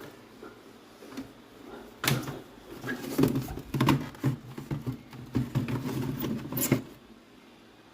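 Irregular knocking and clattering of objects being handled, starting about two seconds in and stopping about a second before the end.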